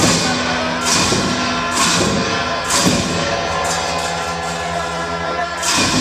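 Tibetan monastic ritual music: cymbal-and-drum strikes about once a second over sustained, steady tones. The strikes pause for about three seconds in the second half, then resume.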